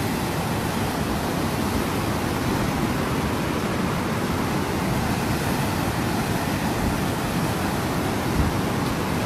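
Floodwater of a river in spate rushing past in a fast brown torrent: a steady, loud rushing noise.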